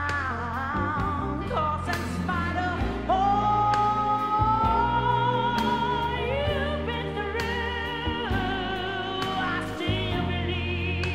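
A song: a voice singing wavering, drawn-out notes over a steady bass and accompaniment, with one long note held for about four seconds starting about three seconds in.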